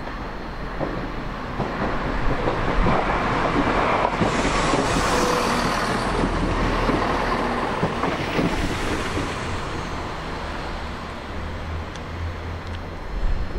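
Southern class 171 Turbostar diesel multiple unit running through the platform without stopping. Its wheels on the rails and its engines get louder as it comes close, are loudest for several seconds as it passes, then fade as it goes away.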